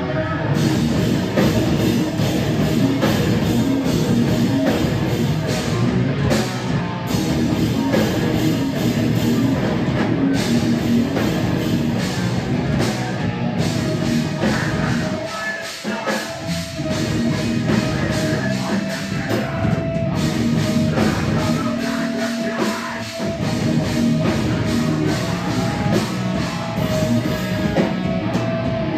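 Hardcore punk band playing live: distorted electric guitars, bass and drums. The music thins briefly about halfway, and a held high note then rings over the rest.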